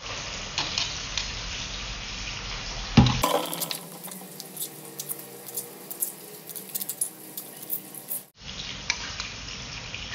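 Stone pestle grinding and knocking in a stone mortar (cobek), crushing chopped starfruit, tomato and chilli into sambal, with many short clicks of stone and a spoon scraping over a steady hiss. A loud knock comes about three seconds in.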